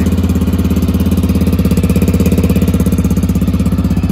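Honda Dominator's single-cylinder engine idling steadily with an even pulse through an aftermarket Arrow exhaust, just started on the choke.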